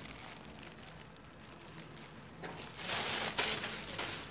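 Thin plastic carrier bag rustling and crinkling as a cat noses into it for food, with a louder burst of crackling about three seconds in.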